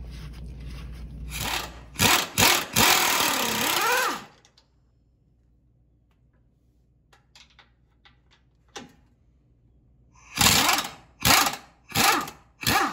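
Impact wrench on a long socket extension running the sway bar bracket bolts. It hammers in one long burst of about two seconds, then in four short bursts near the end.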